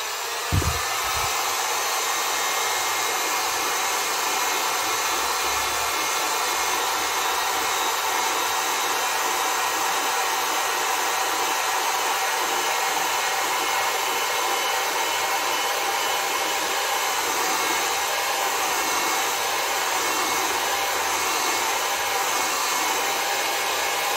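An old hot air gun (heat gun) running steadily on its lowest power setting, blowing hot air to shrink a rubber sleeve. There is a brief low knock about half a second in.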